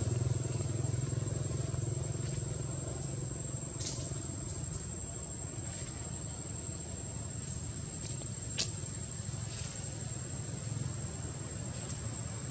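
Steady high-pitched drone of forest insects. A low rumble fades away over the first few seconds, and two sharp clicks come about four and eight and a half seconds in.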